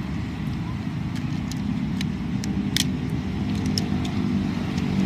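Sharp plastic clicks and snaps, several scattered through, as the parts of a Tobot Titan transforming robot toy are pressed and folded together, over a steady low engine rumble like a motor vehicle running nearby.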